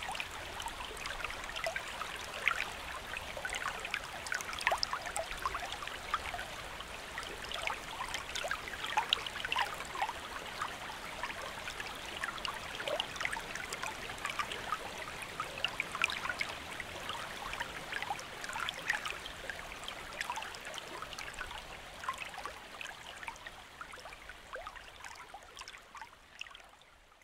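A recorded forest stream: water babbling and trickling steadily, with many small splashing drips, fading out over the last few seconds.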